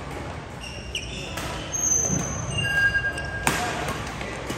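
Badminton rally: racket strings striking the shuttlecock in sharp pops, the loudest about three and a half seconds in, with short high squeaks of court shoes on the floor in between.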